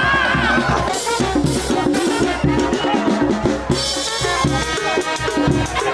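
Cumbia music: an instrumental passage with a drum kit and percussion keeping a steady beat under pitched instruments, after a held note fades out in the first second.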